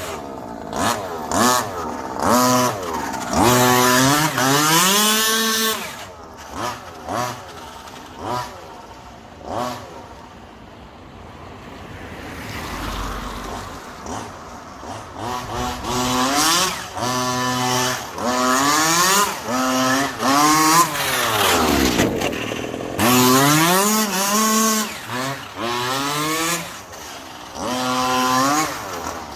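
Two-stroke engine of a 1/5-scale RC road/rally car being driven hard, revving up and down in quick bursts. About ten seconds in it fades as the car moves off, then comes back, with a pass-by whose pitch falls steeply a little after twenty seconds.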